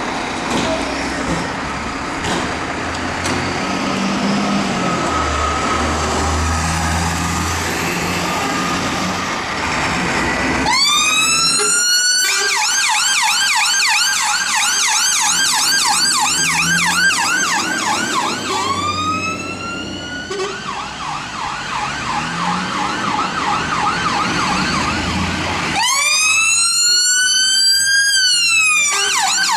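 Dennis Sabre fire engines' diesel engines running as they pull out. About a third of the way in, an electronic siren starts with a rising wail, then switches to a fast yelp. Twice more it swings back into a long wail and then returns to the yelp.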